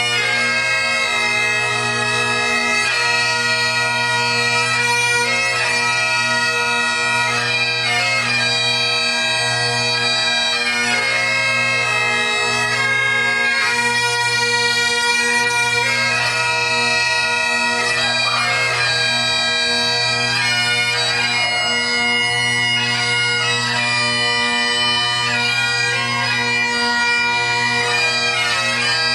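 Two Great Highland bagpipes playing a tune over their steady drones.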